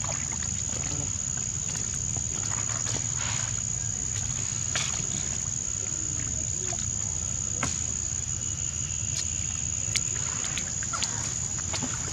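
Insects droning steadily on one high pitch, over a steady low rumble, with scattered small clicks and taps.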